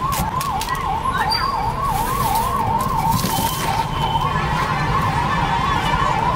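Electronic siren-like warble, a single tone sweeping quickly up and down about three times a second, steady and unbroken, over low traffic rumble. A few sharp clinks come in the first second.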